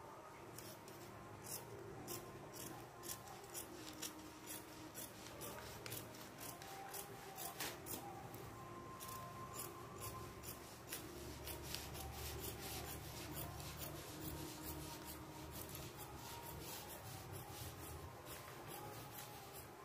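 Scissors snipping through printed fabric along paper pattern pieces: a long run of short, crisp cuts coming irregularly, about one or two a second.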